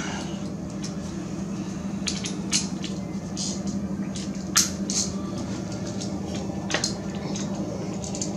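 A few separate sharp metallic clicks of a socket and 3-inch extension being worked onto the wheel hub's 15 mm mounting bolts, over a steady low hum.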